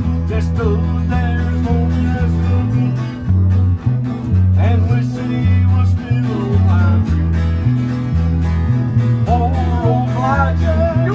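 Several guitars playing a country-style tune together over a steady, stepping bass line, with a melody bending in pitch above it.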